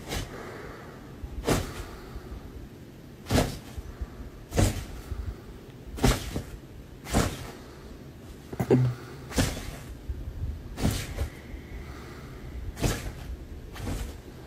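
A dog throwing a tantrum on a bed: a series of about ten sharp thumps and knocks, one every second or so, irregularly spaced.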